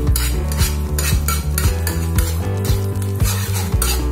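Steel spoon scraping and stirring across a nonstick pan, mixing butter, coriander and pav bhaji, in repeated strokes about two a second.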